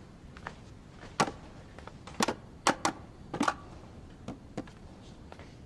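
Light clicks and knocks of bottles and food containers being picked up and set down on a kitchen counter, a string of short taps bunched in the middle seconds.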